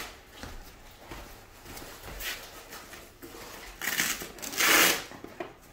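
Rubbing and rustling of the backpack vacuum's harness and straps being handled, with a louder scraping rasp lasting about half a second near the end.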